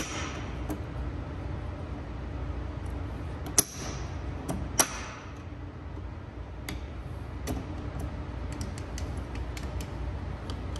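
Sharp metallic clicks from a hand-held K-series six-speed transmission mainshaft as its synchro sleeves are shifted into gear: three louder clicks in the first five seconds, then lighter, more frequent ticking near the end.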